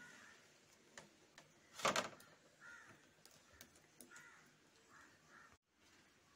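Crows cawing faintly a few times, with one loud, brief sound about two seconds in.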